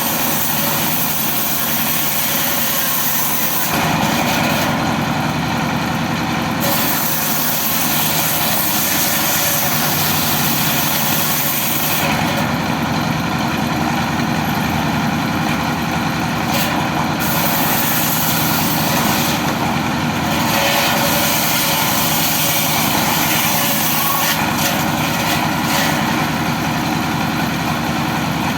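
Motor-driven wood saw running steadily while sawing teak timber, its tone shifting every few seconds as the load changes.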